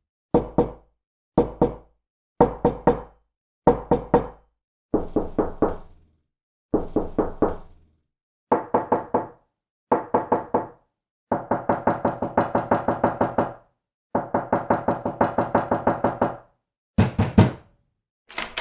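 Knuckles knocking on a door in a series of separate takes, each a short group of a few raps with silence between. In the second half come two longer, faster runs of about a dozen knocks each.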